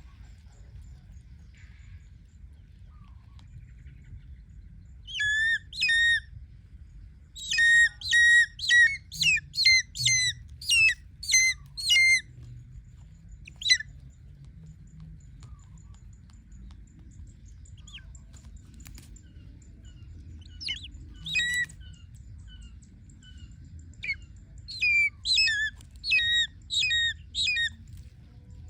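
Changeable hawk-eagle calling: runs of short, shrill, whistled notes, about two a second, coming in several bouts with pauses between, the longest run about ten notes.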